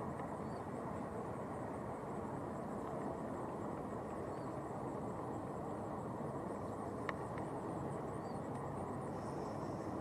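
Steady low outdoor background noise, with three faint short high chirps spread through it and a single sharp click about seven seconds in.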